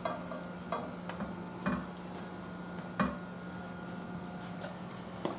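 A few short, light metal knocks and clanks, the clearest about two and three seconds in, as the steel bar of a manual tire changer is set against the tire bead and the steel wheel rim.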